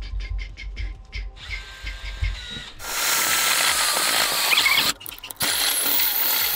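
A cordless drill with a step drill bit cuts a hole through the aluminium wall of an electrical box. The noise starts about a second and a half in and turns into a loud, shrill metal-cutting screech as the bit bites. It breaks off for a moment and then resumes.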